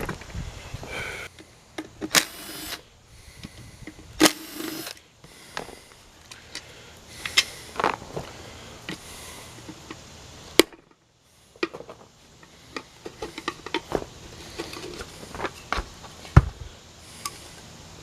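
Scattered clicks, knocks and short scrapes of metal parts and tools being handled as a pump motor is taken apart, with a sharp knock about 16 seconds in.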